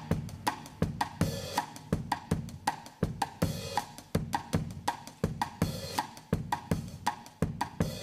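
Drum-led music: a steady run of sharp drum and cymbal strikes, about three to four a second, with no speech over it.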